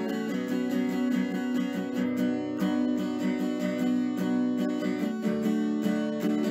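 Instrumental background music: an acoustic guitar plucked and strummed at a steady, even pace.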